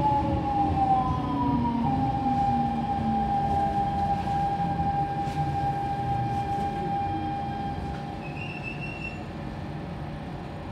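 Siemens C651 train's GTO inverter and traction motors whining as the train brakes into a station. Several tones fall in pitch, then one whine holds steady for several seconds and fades, with a brief high squeal about eight seconds in.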